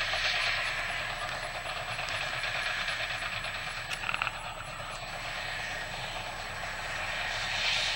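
Heavy earthmoving machinery running steadily, with a short rattle about four seconds in.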